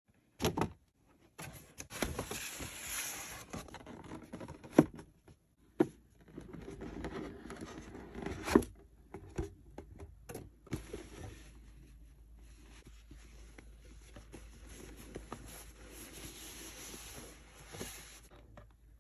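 Packaging being handled and opened: rustling, tearing and scraping, with scattered sharp taps and clicks, the loudest about five and eight and a half seconds in.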